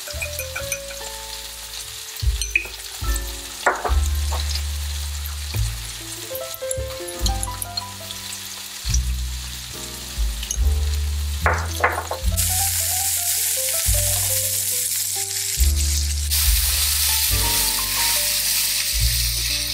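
Sliced zucchini sizzling in a nonstick frying pan as seasonings are shaken over it, with a few sharp clicks in the first half. The sizzle grows louder and hissier past the middle as a spatula stirs the pieces near the end. Background music with a bassline runs underneath.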